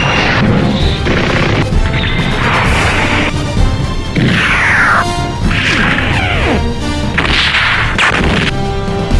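Edited battle sound effects over background music: repeated crashes and hits, with swooshes that fall in pitch.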